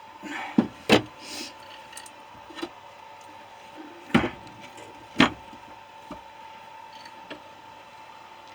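Scattered knocks and clanks of metal compressor parts being handled, about five sharp hits spread over several seconds, under a faint steady hum.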